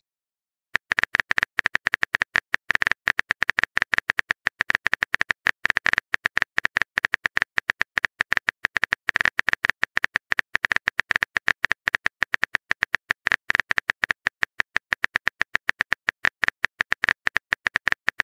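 Rapid, irregular typing clicks as a chat message is typed out, several small clicks a second, starting after a short silence.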